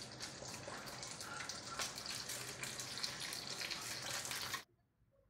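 An egg frying in a hot flat pan on a gas burner: a steady sizzle with many crackling pops. It cuts off abruptly about four and a half seconds in.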